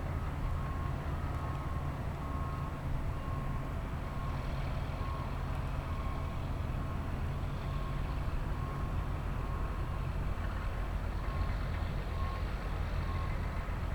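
Heavy construction vehicle's diesel engine running with its backup alarm beeping at about one beep a second, as the vehicle reverses while dumping or spreading a load of excavated dirt.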